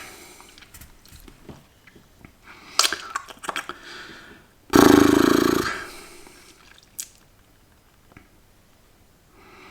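Crunching and chewing of a mouthful of smoked crickets, with scattered crackles and clicks. About five seconds in comes a loud, throaty noise from the eater lasting about a second.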